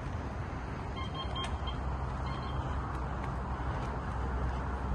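Steady low rumble and hiss of outdoor background noise, with a few short high-pitched peeps about a second in.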